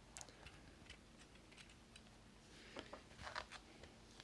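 Faint, scattered clicks and taps of small plastic LEGO pieces being handled and pressed together, with a small cluster of them near the end; otherwise near silence.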